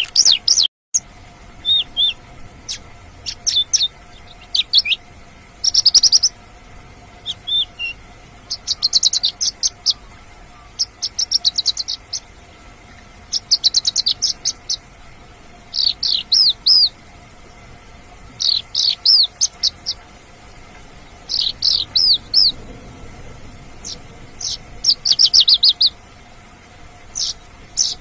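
Mongolian lark singing: short phrases of quick, high chirping notes, repeated every two to three seconds.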